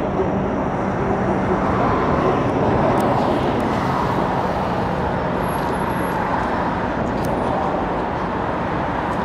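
Steady city road-traffic noise, a continuous rush of passing cars.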